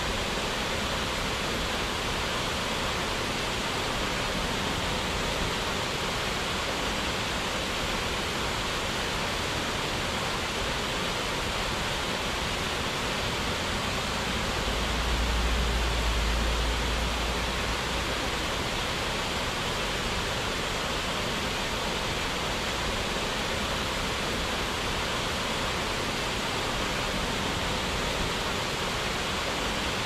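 Steady rush of water falling over a small waterfall, an even hiss without a break. A brief low rumble comes up about halfway through and fades after a few seconds.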